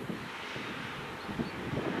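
Class 88 locomotive-hauled freight train approaching: a low rumble that grows slowly louder, with wind buffeting the microphone.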